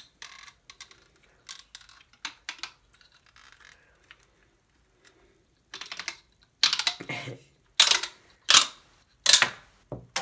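Paper crimper being worked with a card fed through its rollers: light clicks and rustling, then from about six seconds in a series of loud, noisy strokes about two thirds of a second apart. The card goes straight through without crimping.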